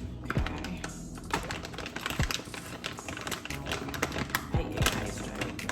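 Rapid, irregular clicking and light clatter of kitchen work.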